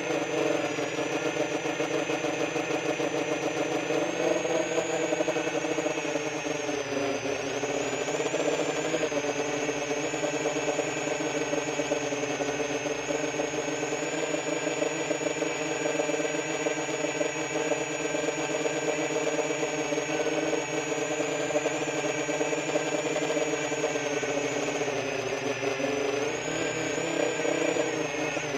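QAV-R 2 XL 10-inch FPV quadcopter's brushless motors and propellers whirring steadily in flight, the pitch wavering with throttle and dipping briefly about six seconds in and again near the end.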